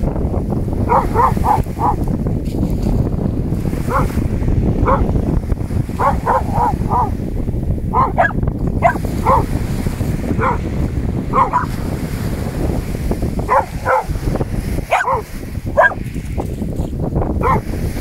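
A dog barking over and over in short, sharp barks, some in quick runs of three or four, in alarm at a half-submerged rock in the surf. Underneath is the steady rush of waves breaking on a shingle beach.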